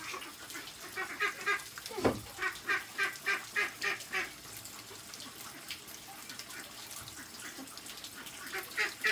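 Ducks quacking in a quick run of about ten calls, then a few more near the end. A single short, falling call about two seconds in is the loudest sound.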